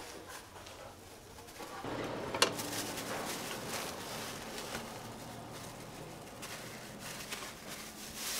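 Food being served into a plastic bag: light handling noise with one sharp knock about two and a half seconds in and a few softer ticks, over steady outdoor background noise with a faint low hum that comes up about two seconds in.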